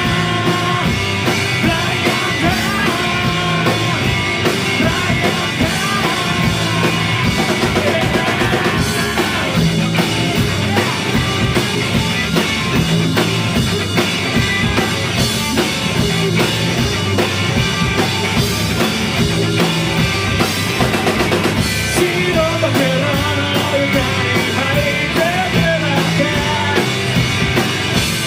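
Rock band playing live in a garage-punk style: drum kit beating steadily under distorted electric guitars and bass.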